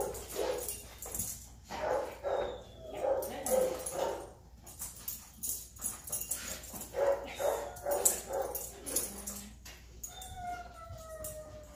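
Labrador retriever whining and whimpering in short, repeated yips, with one longer falling whine near the end. Background music plays underneath.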